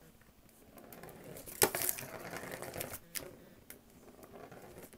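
A cat batting a plastic ball around the circular plastic track of a scratcher toy: a rolling rattle with several sharp clicks and knocks, the loudest about a second and a half in.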